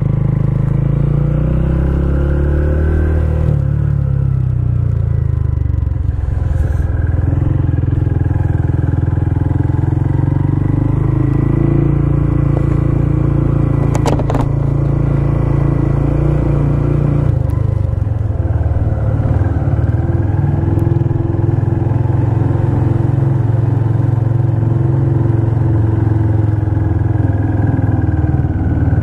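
Honda CB125F's single-cylinder engine, fitted with a new exhaust, running at low road speed. Its pitch rises and falls a few times as the bike slows and pulls away. A sharp click comes about halfway through.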